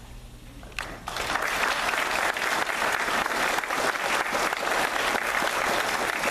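Audience of adults and schoolchildren applauding. The applause breaks out about a second in and keeps up as a steady, dense clapping.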